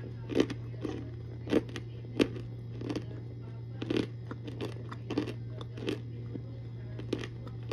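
Baked cornstarch brick being bitten and chewed: a string of sharp, irregular crunches, roughly one or two a second.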